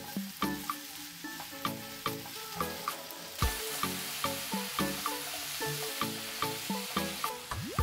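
Sliced button mushrooms sizzling in hot oil in a frying pan while being stirred with a silicone spatula; the sizzle grows louder about three and a half seconds in. Light background music with plucked notes plays throughout.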